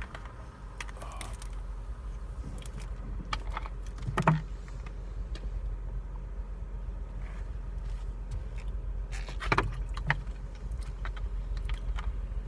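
Steady low road rumble inside a moving car's cabin, with scattered short knocks and clicks. The sharpest come about four seconds in and again about nine and a half seconds in.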